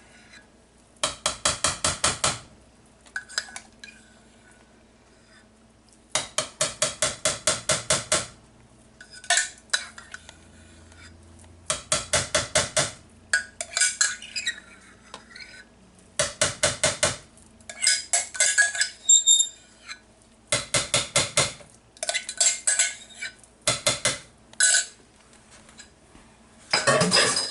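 Spoon clinking against a mixing bowl in repeated runs of quick strokes, about seven a second, each run lasting one to two seconds, as sour cream is spooned in and worked into cake batter.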